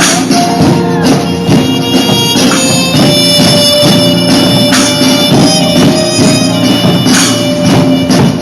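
A holiday drumline band playing loud music: repeated drum strokes over sustained, held melody notes.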